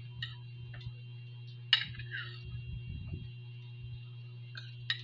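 Metal spoon clicking and scraping against a ceramic plate of food, a handful of sharp ticks with the loudest about a second and a half in, over a steady low electrical hum.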